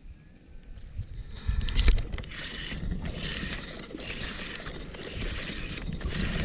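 Fishing reel being cranked to retrieve a lure: a rattling whir in short spurts, starting after a thump about a second and a half in.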